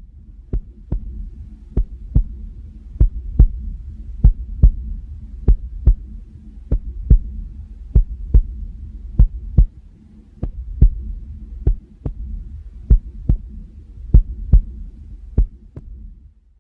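A heartbeat sound, slow and even, each beat a double thud (lub-dub) about once every 1.2 seconds, over a steady low rumble.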